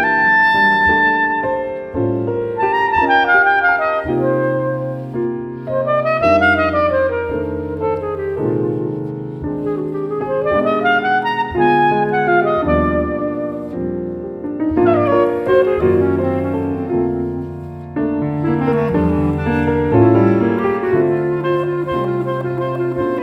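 Recorded clarinet and piano duet: the clarinet plays a melody of rising and falling runs over sustained piano chords, heard as a test source for an LA-2A-style opto compressor.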